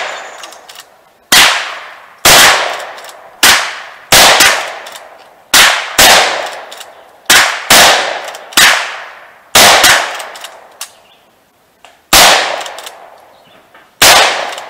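A string of about a dozen gunshots fired in quick succession at uneven intervals, each trailing off in an echo. There are two pauses, one of about two seconds after the tenth shot and one of about two seconds before the last.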